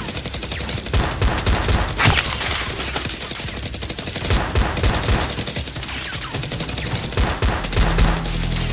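Sustained rapid gunfire, many shots overlapping in bursts like automatic weapons in a firefight.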